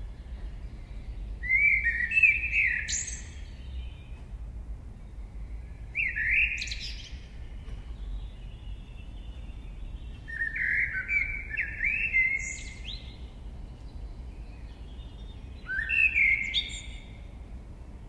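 A songbird singing four separate short phrases of whistled notes, each ending in a quick high flourish, over a steady low background rumble.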